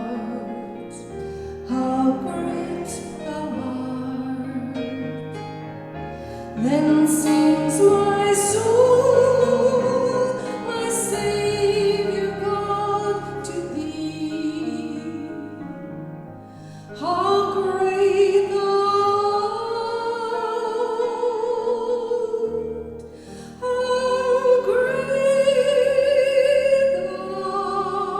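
A hymn sung in a trained, operatic style over keyboard accompaniment: long phrases of held notes with vibrato, each swelling and then pausing briefly before the next.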